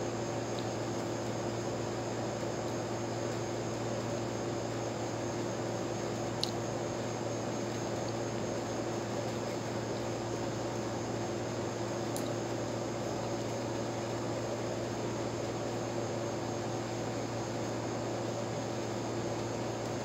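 Steady background hum and hiss, with a low electrical-sounding drone and faint high tones. Two brief faint clicks come about a third and two thirds of the way through.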